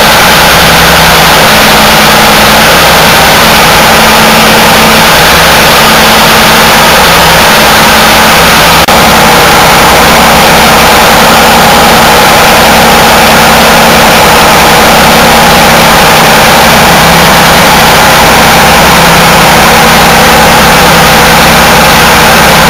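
Perkins S6M six-cylinder marine diesel running steadily at idle, loud and close. There is a momentary break about nine seconds in.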